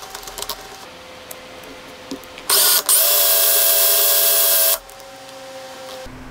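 Cordless drill motor running at speed for about two seconds, with a slotted pin holding a strip of sandpaper in its chuck. It starts about two and a half seconds in, cuts out for a moment, runs on, then stops. Light clicks of handling come before it.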